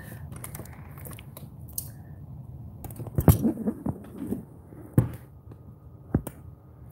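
Handling noise from a phone camera being turned around and repositioned: low rubbing and rustling, with a few sharp knocks, the loudest about three seconds in and two more about five and six seconds in.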